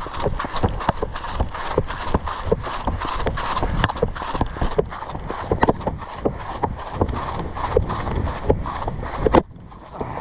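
Quick footsteps crunching through dry leaves and sticks on the forest floor, a few steps a second, stopping abruptly near the end.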